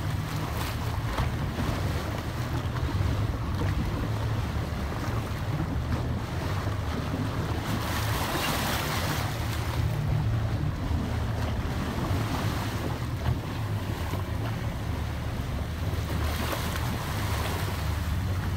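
A boat's motor runs steadily under way, with water rushing and splashing along the hull and wind buffeting the microphone. The water rush swells twice.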